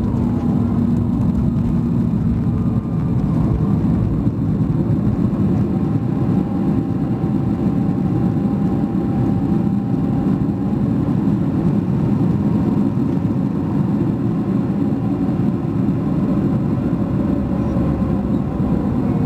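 Boeing 737 MAX 8's CFM LEAP-1B engines in reverse thrust during the landing rollout on a wet runway, heard from the cabin over the wing: loud, steady engine and rolling noise. A low hum gives way to denser noise about three seconds in.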